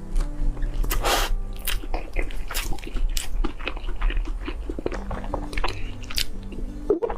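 Close-up biting and chewing of a dessert: many short crunches and wet chewing clicks. Soft background music plays underneath.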